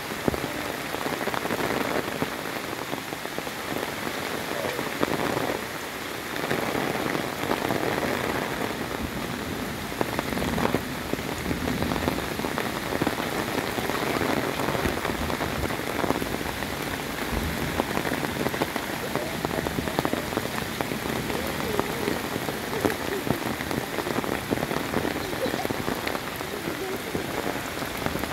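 Heavy rain falling steadily on forest foliage and a wet gravel track: a dense, even hiss full of small drop ticks.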